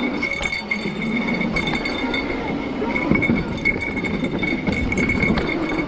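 Mountain bike riding down a dirt trail: tyres rumbling over rough ground while the chain and bike parts clink and rattle, with a steady high-pitched whine on top.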